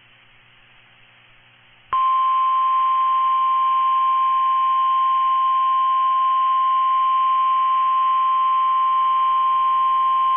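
NOAA Weather Radio 1050 Hz warning alarm tone, the signal that a warning message follows. After about two seconds of faint radio hiss and hum, one steady, loud, high-pitched tone starts abruptly and holds unbroken.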